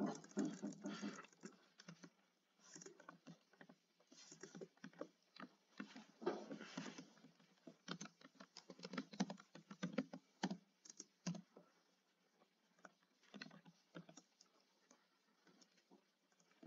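Typing on a computer keyboard: irregular keystrokes in quick runs with short pauses, thinning out after about eleven seconds.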